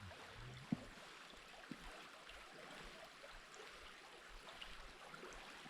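Faint, steady rush of a mountain stream, with two soft taps about a second apart near the start.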